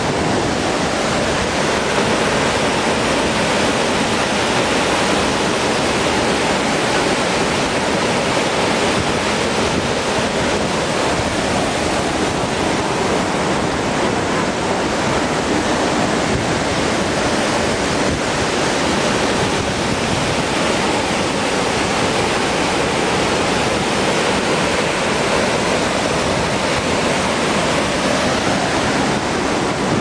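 A waterfall's water rushing, a steady even roar of falling water with no let-up.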